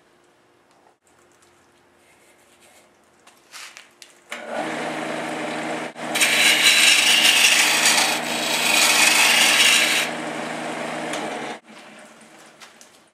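Sandpaper held against a wood blank spinning on a lathe: a rough, rasping rub over the lathe's hum that starts about four seconds in, grows loudest and brightest in the middle, eases, and stops suddenly near the end. Before it only the lathe's faint hum is heard.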